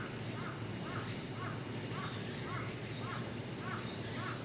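A crow cawing over and over, about two short caws a second, over steady background noise.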